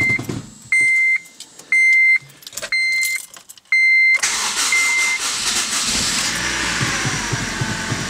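A dashboard warning chime beeps about once a second. About four seconds in, the 2006 Honda Civic's 1.8-litre four-cylinder engine starts and keeps running on its freshly replaced timing chain, with the chain rattle gone.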